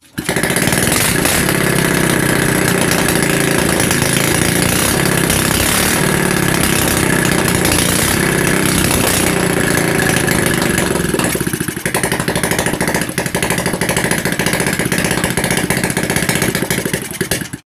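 Rebuilt Honda RS125 motorcycle engine running loud and steady on its test run after a full overhaul, dipping slightly about twelve seconds in and stopping abruptly near the end.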